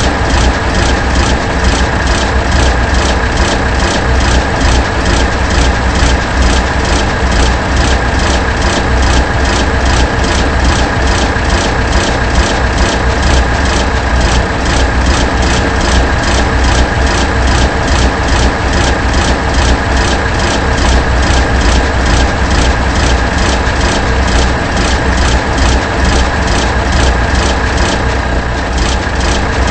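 A loud machine with an engine-like sound running steadily, with a deep rumble, a steady high whine and a fast, even pulsing.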